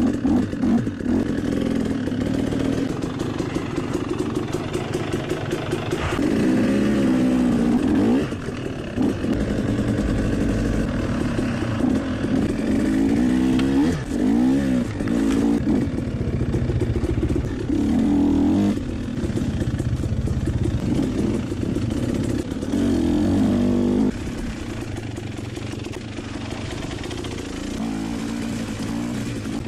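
Two-stroke GasGas dirt bike engine heard from on board while riding, revving up and falling back again and again as the throttle is worked along the trail.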